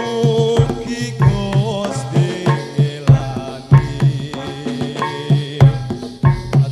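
Live Javanese folk music: a hand-drum rhythm with strokes several times a second under sustained melodic instruments and a wavering melody line.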